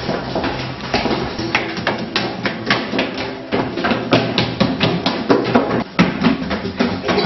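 Footsteps of people hurrying up a staircase: a fast, uneven run of loud knocks on the steps, two or three a second.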